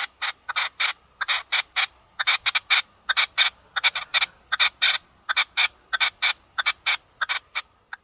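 Partridge calling in a rapid run of short, rasping calls, about four to five a second.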